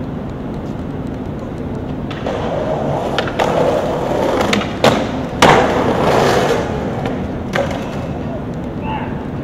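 Skateboard wheels rolling over concrete pavement, with several sharp clacks of the board. The loudest clack comes about five and a half seconds in.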